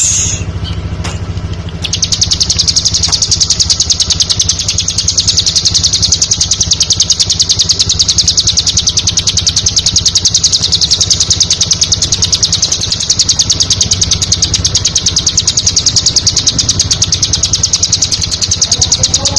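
Bar-winged prinia (ciblek) singing a long, rapid, evenly pulsed high-pitched trill, starting about two seconds in, over a steady low hum.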